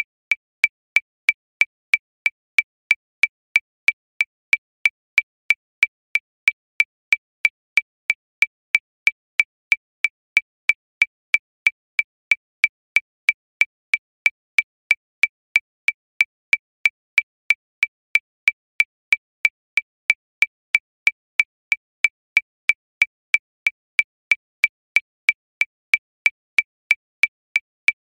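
Metronome clicking steadily at 185 beats per minute, about three short high-pitched ticks a second, every tick alike with no accented beat.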